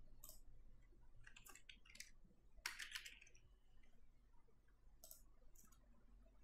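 Faint clicks of a computer mouse and keyboard: a single click, then a quick run of keystrokes, the loudest cluster of clicks about three seconds in, and two more clicks near the end.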